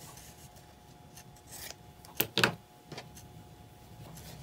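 Fabric pieces and tools being handled on a cutting mat, quiet apart from a quick cluster of sharp clicks just over two seconds in and one more about a second later.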